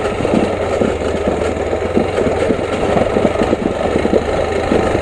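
Motorcycle engine running steadily at low speed over a rough gravel dirt road, with dense, uneven rattling and knocking from the bumpy surface.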